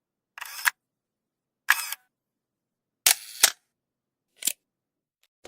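Camera shutter clicking four times, a little over a second apart, each a short double click as the shutter opens and closes, with dead silence between: a shutter sound effect.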